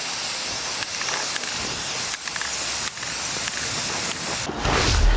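Aerosol spray can of primer hissing steadily as paint is sprayed in sweeping passes, dipping briefly about three seconds in. A loud low rumble near the end.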